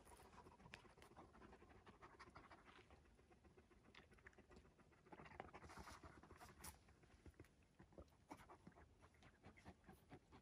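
Faint panting of a dog, with soft scattered clicks and scuffs.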